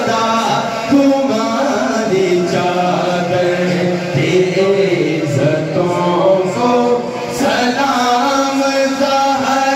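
Men singing a naat (an Urdu devotional poem in praise of the Prophet) without instruments, a lead voice with a second singer joining in on another microphone, in long held, melismatic notes.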